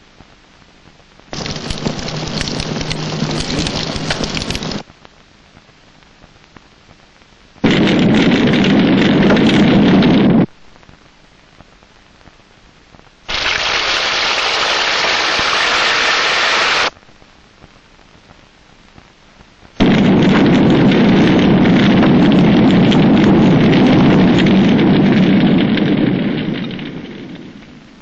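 Loud rushing noise in four separate stretches of about three to seven seconds each, every one starting and stopping abruptly with only faint hiss between; the last fades away near the end.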